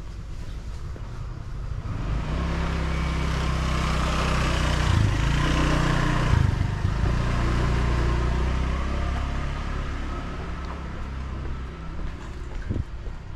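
A small motorbike engine approaching, passing close by and fading away, its hum rising to a peak about halfway through and shifting in pitch as it goes past.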